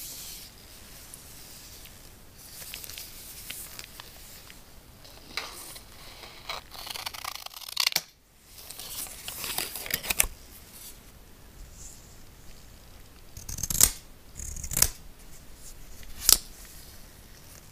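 Scissors snipping the paper band off a coiled USB-C cable, with rustling of the paper and cable as it is handled, then several sharp snips and clicks in the second half.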